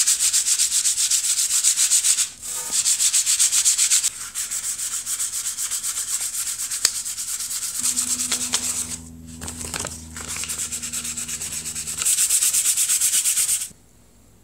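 Fine 1500-grit sandpaper rubbed in rapid back-and-forth strokes over a lacquered wooden keyboard case, knocking down the lacquer to a smooth finish. The strokes pause briefly twice and stop a little before the end.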